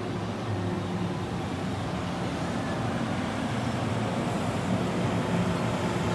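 Disneyland Resort Line electric train pulling in alongside the platform, a steady low rumble that grows a little louder.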